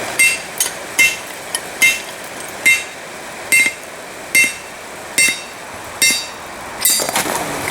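Hand hammer blows on hot steel over an anvil, about one strike a second, each with a short metallic ring and a few lighter taps in between.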